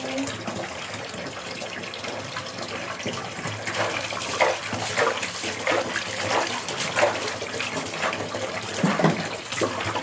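Water running and splashing as a plastic fan grille is washed and scrubbed by hand with a wet cloth. About three or four seconds in, the splashing and scrubbing strokes get busier and more irregular.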